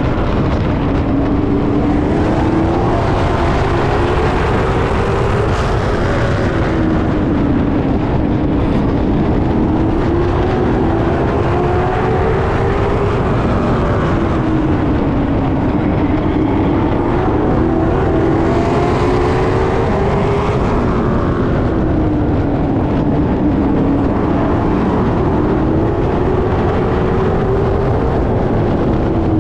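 Late model stock cars racing on a short oval, their V8 engines running hard. The engine note rises down each straight and falls as the cars lift for each turn, about every seven seconds.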